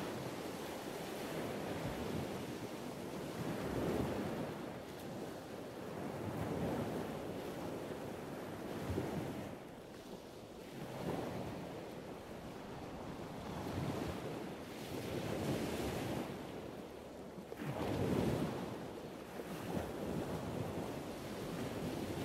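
Sea waves washing onto a beach, with wind buffeting the microphone; the noise swells and eases every few seconds.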